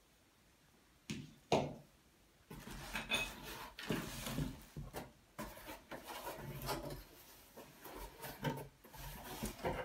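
Two knocks as a plate is set down on a wooden floor, then cardboard packaging scraping, flexing and rustling as a large box is pulled about and lifted.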